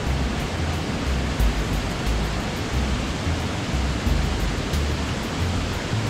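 Waterfall cascading over boulders into a pool: a steady rush of falling water with a low rumble underneath.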